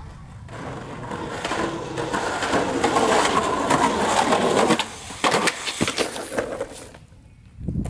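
Skateboard wheels rolling on concrete, growing louder as the rider comes closer. About five seconds in comes a run of sharp clacks and knocks as he bails off a stair set and the board clatters on the concrete.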